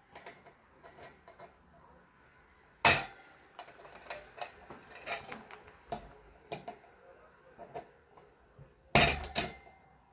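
Small screwdriver and metal mini USB fan housing clicking and clinking against each other as the screwdriver is worked at a screw that won't turn. There are scattered light clicks, with a louder knock about three seconds in and a double knock near the end.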